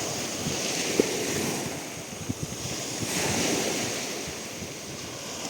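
Sea waves washing in, a steady rush that swells about a second in and again around three seconds in.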